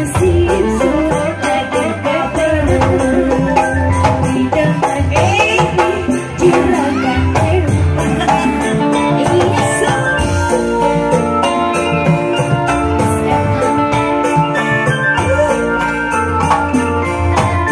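Loud live band music with a quick, steady beat on hand drums and tambourine, with melody lines over it from electric guitar and keyboard.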